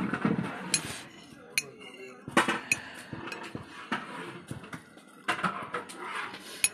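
Metal spoon clinking and scraping against a china plate, a string of sharp taps at uneven intervals.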